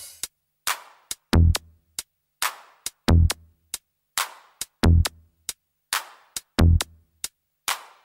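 Sparse electronic drum-machine beat with no melody: a deep thud about every 1.75 seconds, a bright crack halfway between each pair, and short ticks in the gaps.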